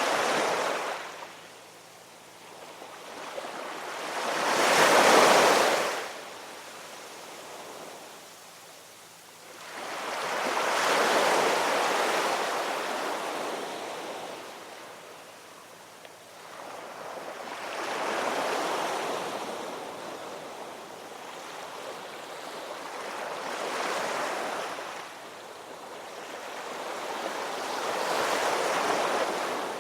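Ocean waves breaking and washing in, in swells every five to seven seconds, each rising to a rush of surf and falling back; the second wave is the loudest.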